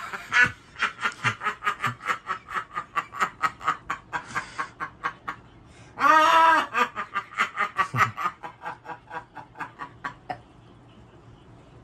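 Elderly woman laughing hard: a fast, breathy cackle of about four or five bursts a second, broken about six seconds in by a loud high-pitched whoop, dying away near the end.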